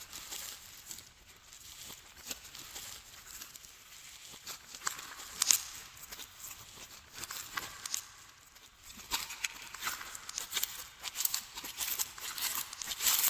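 Glossy slime being squished and kneaded by hand, making irregular sticky clicks and crackles that come thicker and louder in the last few seconds.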